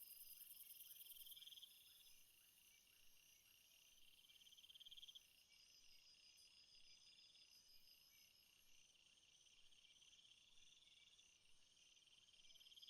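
Faint night chorus of crickets and other insects: steady high trills, with one pulsed trill swelling and stopping every two to three seconds, and a very high buzz that cuts off about a second and a half in.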